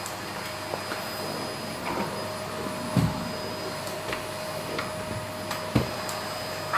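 Household vacuum cleaner running steadily, a hum with a constant whine, with two dull low thumps about three seconds in and near the end.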